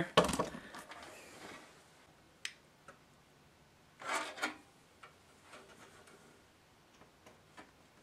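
Faint handling noises from a plastic cable connector and its wires being lined up with motherboard header pins: a couple of light clicks, a short rustle about four seconds in, then small ticks.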